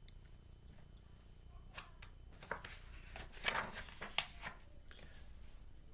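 A paper picture book being handled and a page turned: a few soft rustles and taps over a low steady room hum.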